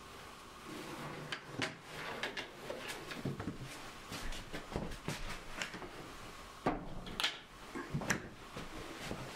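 Scattered knocks and clatter of handling painting gear: a plastic paint tub lifted and moved, a brush and lid set down, with the sharpest knocks about seven seconds in. A faint steady hum runs underneath.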